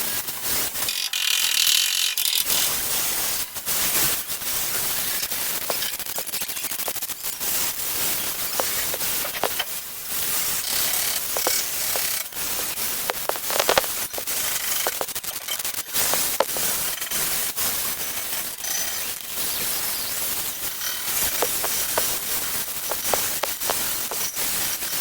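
Welding arc crackling and spitting on steel scooter body panels, in uneven runs of dense crackle with short breaks between welds.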